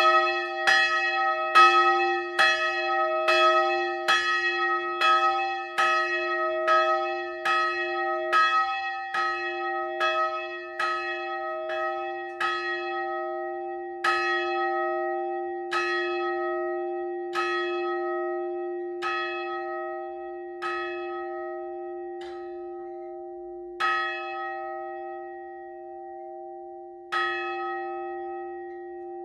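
A single hand-rung church bell swinging on its rope, the clapper striking about every 0.8 s at first. About halfway through the strikes thin out to one every second and a half or more, growing weaker and leaving gaps as the swing dies away, with the bell's low hum ringing on between them. The ringing is winding down as the bell comes to rest.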